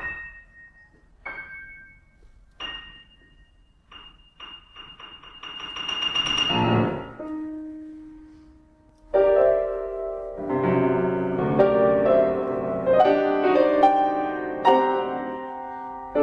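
Contemporary classical music. It opens with a few sparse, high, bell-like struck notes and a swell that rises and dies away on a held low note. About nine seconds in a piano comes in loudly with dense, ringing chords.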